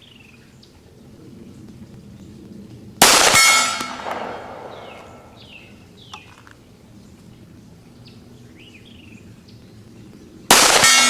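Two shots from a 1911 pistol, about seven and a half seconds apart, in slow aimed fire. Each is a sharp crack with a long ringing tail.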